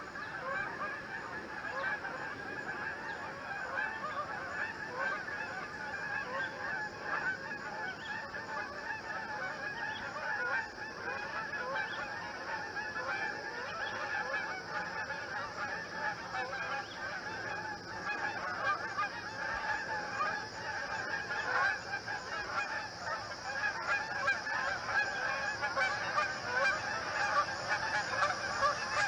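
A flock of Canada geese honking, with many short calls overlapping in a dense, continuous chorus that grows a little louder near the end.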